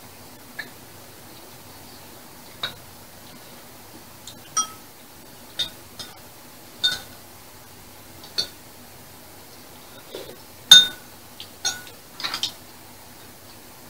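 Metal chopsticks and spoons clinking against ceramic bowls during a meal: about a dozen sharp, irregular clinks with a short ring, the loudest about eleven seconds in and a quick run of three near the end.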